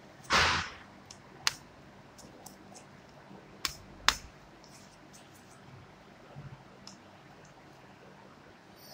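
A glitter-coated craft sheet being bent and handled: a short crinkling rustle, then a few sharp clicks and faint ticks.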